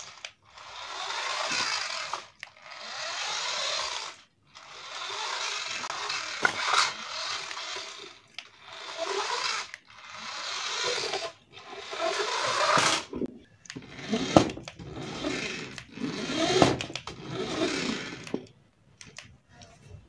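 Small electric motor of a cheap battery-powered toy remote-control sports car running in spells of one to two seconds as it is driven, stopping and starting about eight times. A few clicks and knocks come in the second half.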